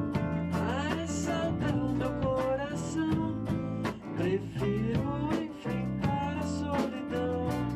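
Instrumental band music led by strummed guitar, with a steady beat.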